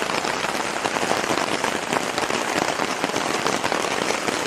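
Heavy rain falling on a tent, heard from inside: a dense, steady patter of drops on the fabric.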